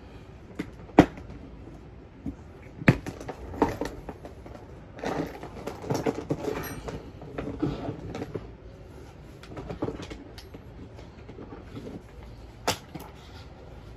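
Handling noise from an AR-15-style rifle with a suppressor: a few sharp clicks and knocks, with rustling and clatter in between.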